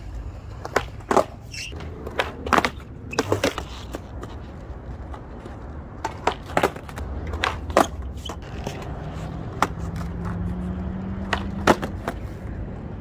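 Skateboard wheels rolling on smooth concrete, with about a dozen sharp clacks of the board being popped and landing during flatground trick attempts.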